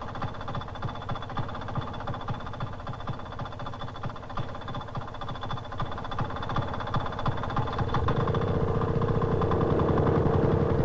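Small engine of a snow buggy running with a rapid, even pulsing, growing louder about three-quarters of the way through.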